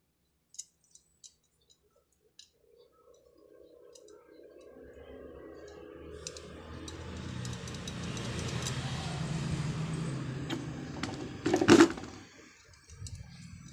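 A few light metallic clicks of a steel welding ground clamp being handled, then a motor vehicle's engine that grows louder over several seconds and falls away, with one sharp loud clack just before it fades.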